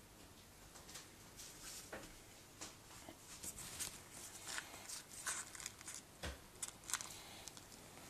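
Faint crinkling and rustling of baking paper and puff pastry as hands fold and roll the pastry. It is quiet for about the first three seconds, then comes a quick run of short crackles.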